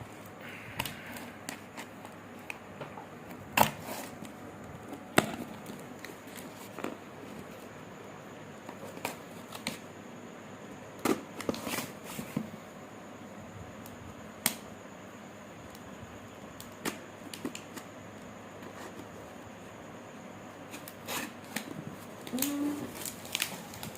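Hands handling a small package and its contents: scattered taps, clicks and light rustles, with two sharper knocks a few seconds in and more clusters of clicks later on.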